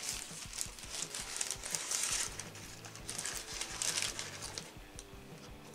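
Paper food wrapper crinkling in several bursts as a McDonald's sausage burrito is unwrapped by hand, dying down near the end.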